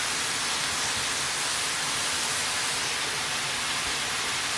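Sliced peppers, onions and mushrooms sizzling steadily in olive oil in a frying pan, a constant even hiss.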